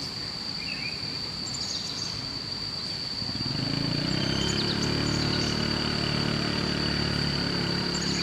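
A small motorbike engine comes in about three seconds in and then runs steadily. A steady high insect drone continues throughout.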